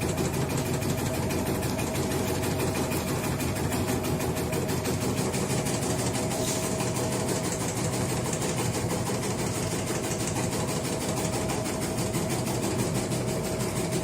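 Motorised tobacco-shredding machine running steadily: an even engine drone with a rapid, regular rhythm running through it.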